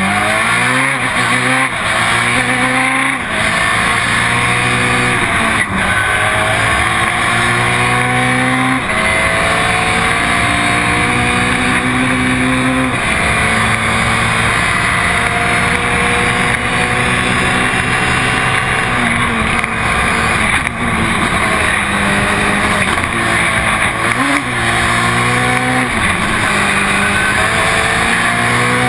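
Ford Fiesta RS WRC rally car's 1.6-litre turbocharged four-cylinder engine driven hard. Its pitch climbs repeatedly and drops sharply at each quick gear change or lift every few seconds, over a steady hiss.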